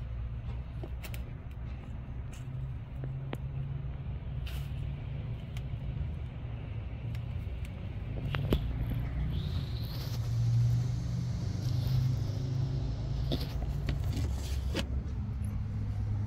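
Steady low rumble of a passing motor vehicle, growing louder with a rising hiss about ten seconds in and easing off a few seconds later, with a few faint light clicks scattered through.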